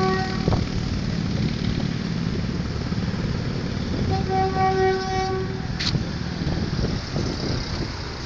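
Train horn sounding one steady note, a short blast that cuts off about half a second in and a longer blast of about a second and a half about four seconds in, over a steady low rumble.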